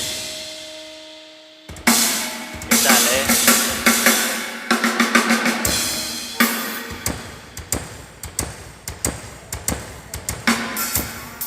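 A held note from the band rings out and fades, then about two seconds in a drum kit starts playing a busy pattern of kick, snare and cymbal hits, as the kit is tried out in a soundcheck.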